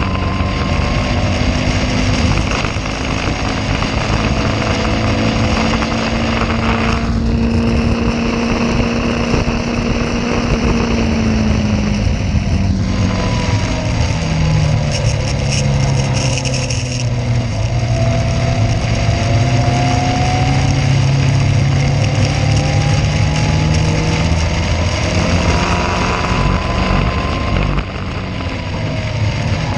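Caterham race car's engine heard from on board, running at changing revs over a steady rushing noise. The engine note holds level, drops about twelve seconds in, stays lower for a while, and climbs again near the end.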